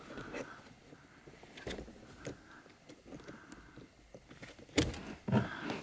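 Automatic wire stripper worked on a thin CAN-bus wire: faint handling and small clicks, then two sharp clicks of the tool's jaws about half a second apart near the end.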